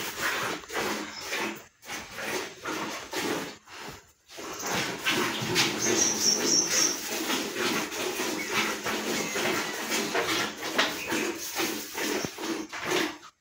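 Young calves moving about on a cowshed floor: many short knocks and scuffs of hooves, coming thicker and with more rustling from about five seconds in.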